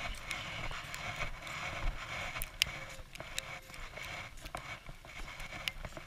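Footsteps crunching through snow as a person and a dog on a leash walk, with scattered sharp clicks.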